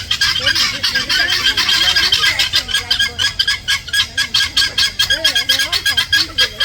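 A flock of birds calling nonstop, a dense chatter of many quick, high calls overlapping, with people's voices faintly underneath.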